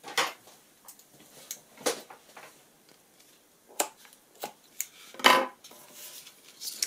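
A pair of scissors handled on a wooden tabletop and snipping through twine: several separate sharp clicks and knocks, with faint rustling of the paper-wrapped packet between them.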